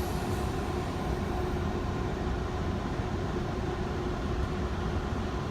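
Tobu Tojo Line electric train, a steady low rumble with a constant faint hum.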